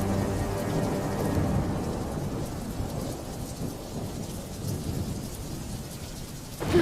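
Rain falling with low rolling thunder, a storm ambience. The held notes of the previous track fade out in the first second or so.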